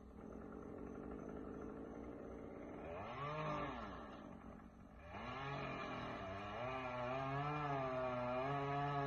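Two-stroke chainsaw engine revving up and down: a brief rise in pitch, a drop back, then a climb to a higher pitch that holds with a wavering note.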